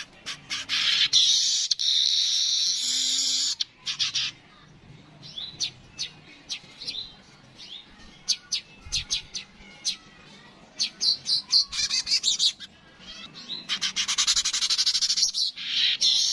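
Manyar weaver song: strings of quick, sharp chips broken by two long, dense buzzing wheezes of about two seconds each, one about a second in and one near the end.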